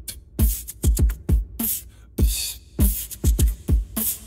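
Background music with an electronic drum beat: deep kick drums that drop in pitch, with sharp snare and hi-hat hits between them.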